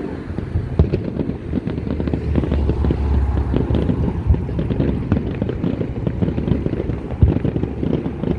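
Fireworks crackling and popping in quick, dense succession, with a heavier low rumble about two to three seconds in.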